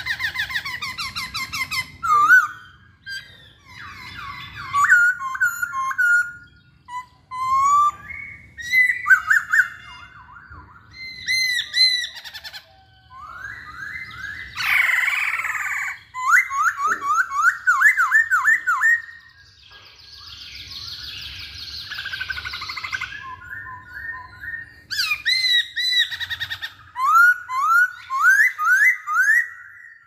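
Black-throated laughingthrush (poksay Hongkong) singing a long, varied song: loud whistled phrases, quick runs of rising slurred notes at about four a second, rapid trills, and two harsher, raspy passages.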